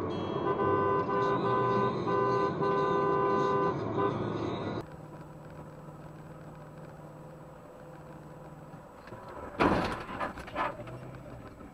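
Car horn honking in several long blasts, cut off abruptly about five seconds in. Then low steady road noise, and a sudden loud bang near the end followed by a couple of smaller knocks, likely a collision.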